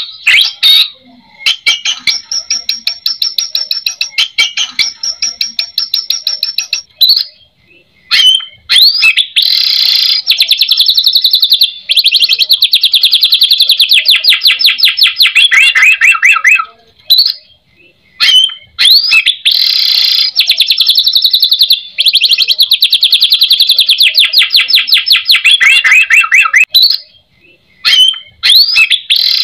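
White-rumped shama (murai batu) singing three long phrases of very rapid rattling trills, each about seven seconds long. Brief pauses between the phrases hold a few short rising notes.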